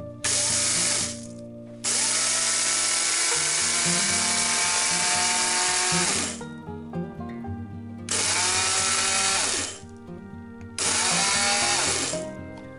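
AEG personal blender grinding toasted rice grains into powder, run in four pulses: a short one, a long one of about four seconds, then two shorter ones.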